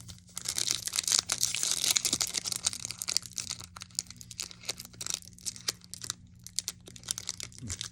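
Foil booster-pack wrapper crinkling and tearing as it is handled and opened: a dense crackle for the first couple of seconds, then scattered crinkles.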